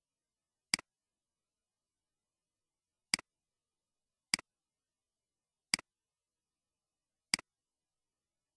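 Five sharp computer mouse button clicks, each a quick press-and-release double tick, spaced unevenly a second or two apart against dead silence.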